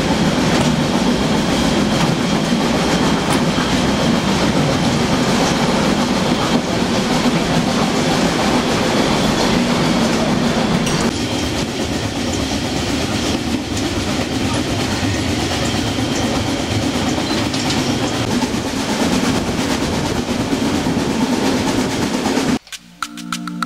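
Harz narrow-gauge steam train in motion, heard from an open coach end platform: steady running noise with the wheels clattering over the rail joints. Just before the end it cuts abruptly to soft, calm music.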